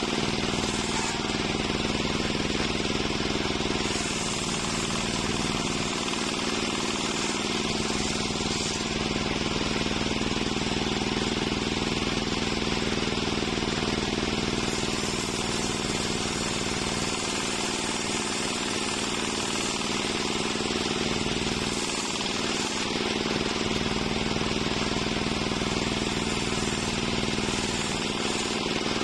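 Large circular saw bench ripping waru (sea hibiscus) wood into boards. The blade runs at a steady hum under a continuous bright cutting noise, with no pauses.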